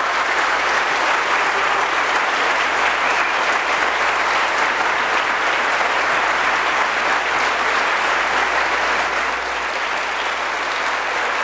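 Large audience applauding steadily, easing slightly near the end.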